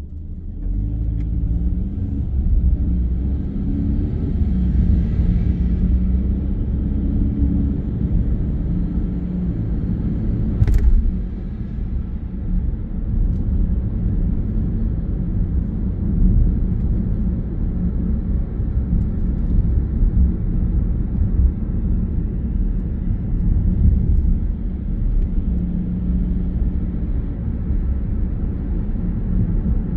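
Car engine and road rumble heard from inside the cabin as the car pulls away and accelerates, the engine note rising and shifting over the first several seconds, then a steady tyre and road drone while cruising. A single sharp click about eleven seconds in.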